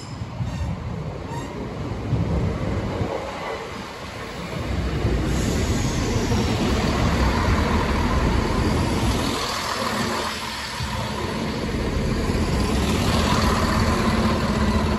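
Diesel multiple-unit passenger train passing over a level crossing: engine running and wheels rumbling on the rails, the rumble swelling about four seconds in and staying loud.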